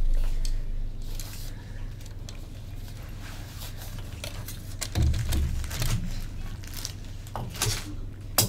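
Room tone with a steady low electrical hum, broken by a few soft thumps and clicks about five seconds in and again near the end, like handling or movement noise.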